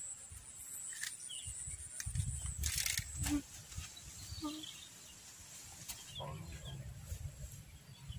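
Outdoor ambience: a low wind rumble on the microphone, a few faint bird chirps, and a thin high steady buzz that stops about three seconds in.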